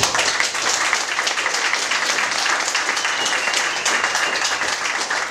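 Small audience applauding: a dense, even patter of hand clapping that starts suddenly as a spoken-word poem ends.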